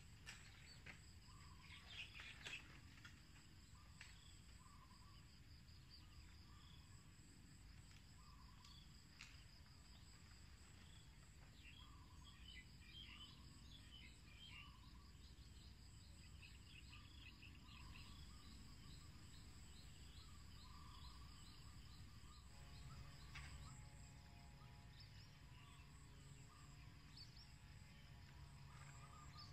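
Near silence: faint open-air ambience of steady insect trilling and scattered bird chirps over low background noise. About three-quarters of the way through, a faint hum of several steady tones sets in.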